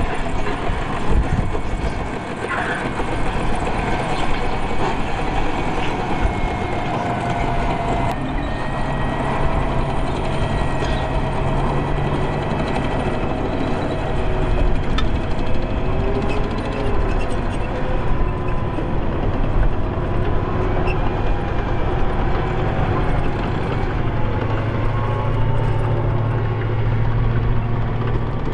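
M1 Assault Breacher Vehicle on an M1 Abrams tank chassis on the move, its gas-turbine engine giving a steady whine over the clanking rumble of its steel tracks.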